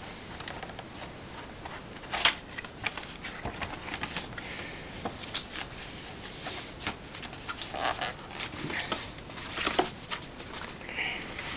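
Cardboard box and packing handled by hand: boxes scraping and sliding against each other, with irregular rustles and taps. The sharpest knocks come about two seconds in and again near the end.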